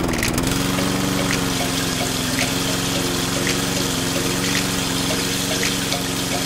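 Small toy electric water pump switched on and running with a steady hum that settles within the first half-second, with water running out of a thin plastic tube and splashing onto sand.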